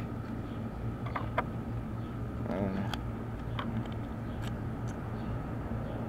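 A few faint, sharp clicks as a Master Lock lockout-series padlock and its brass key are handled, over a steady low hum.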